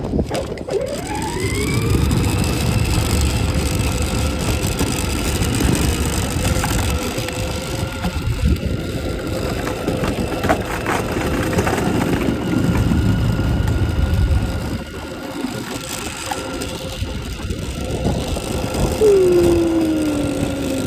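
12-volt electric ride-on toy ATV driving over pavement. Its motors whine, rising in pitch as it gets going and then holding steady, over the rumble and rattle of its wheels on the asphalt. A louder whine falls in pitch near the end.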